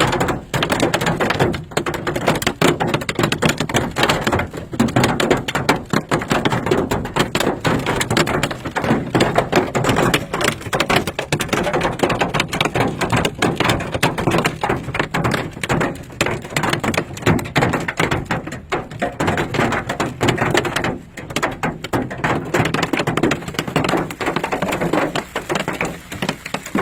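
Golf-ball-sized hail hammering an SUV's roof and body, heard from inside the cabin: a loud, dense, irregular clatter of hailstone impacts that never lets up.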